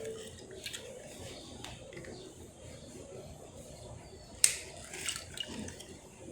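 Limes being squeezed by hand into a glass of water: quiet handling and juice dripping, with a few small clicks and one sharp knock about four and a half seconds in.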